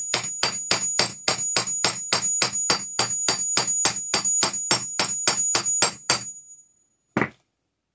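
Hammer lightly tapping a ball bearing's inner race onto the shaft of a Craftsman table saw motor armature, pressing the bearing down flush with the shaft end. The metal-on-metal taps come rapid and even, about four a second, each with a high ringing note. They stop a little after six seconds, and one more single knock follows about a second later.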